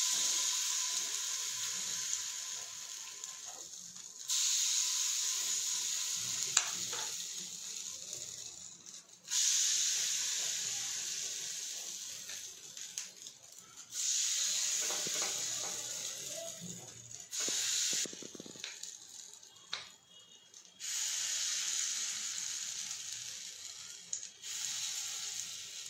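Rava appe batter sizzling in hot oil in the cups of an appe pan as spoonfuls are dropped in, the sizzle coming in several stretches that each start sharply and fade, with a few light spoon clicks.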